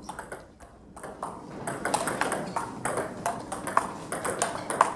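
Table tennis rally: a celluloid ball clicking in quick succession off rubber-covered bats and the table top. The clicks pick up about a second in.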